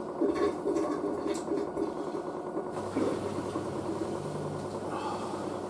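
Miele W562 washing machine spinning: a steady hum from its drum and its whiney brushed motor, which has new brushes.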